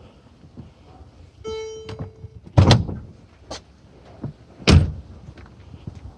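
A car's single electronic warning chime, then two heavy thunks with a lighter knock between them, as the car's latches and panels are worked to open the hood.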